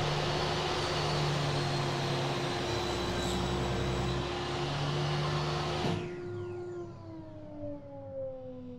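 Table saw and its overarm dust-collection suction running steadily with a constant whine. About six seconds in they are switched off: the rush of air stops suddenly and the saw's whine winds down, falling in pitch as the blade coasts to a stop.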